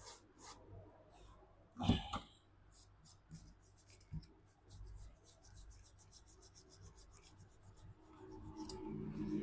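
Faint scratchy rubbing and light ticking of a small brush or tool cleaning the phone's circuit board at the charging-port pads with cleaner, with a stronger scrape about two seconds in.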